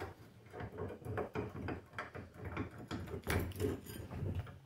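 Cast-iron bench vise being cranked by its sliding T-bar handle, with a string of irregular metal clicks and clunks as the screw turns and the handle knocks, while a mower wheel is held in the jaws.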